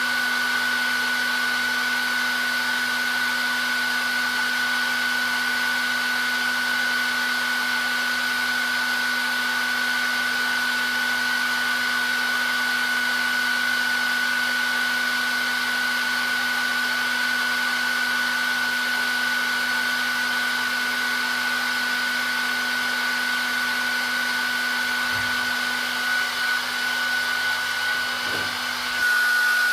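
Hair dryer running steadily: a rushing blast of air with a steady high whine from its motor and fan. It wavers briefly near the end, then carries on.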